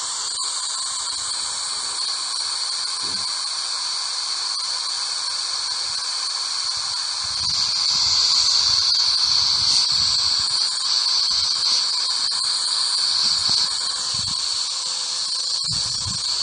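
Ghost Radio spirit-box app playing continuous high-pitched hissing static, growing louder from about halfway through. Faint low murmurs surface in the noise now and then, the fragments a listener would read as spirit voices.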